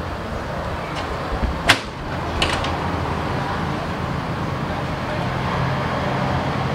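Solid side panel of a PC case being worked loose and lifted off, with a few sharp clicks and knocks in the first two and a half seconds, the loudest a little under two seconds in, over a steady low hum.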